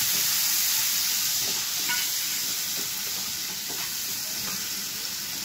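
Chopped tomatoes and ground spices frying in hot oil in a nonstick kadhai, sizzling steadily while a wooden spatula stirs and scrapes them. The sizzle eases slightly about two seconds in.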